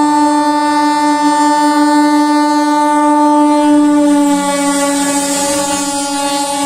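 An Indian Railways electric locomotive's horn, held as one long, steady blast whose pitch dips slightly about four seconds in. In the second half the hiss and rush of coaches passing on the next track grows.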